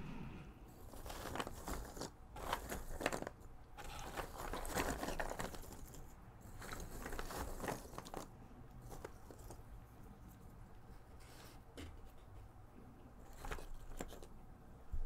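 Fingers rummaging through a boxful of loose cardboard jigsaw puzzle pieces, which rustle, slide and click against each other and the box. The rustling is busiest through the first half, thins out, then picks up again near the end.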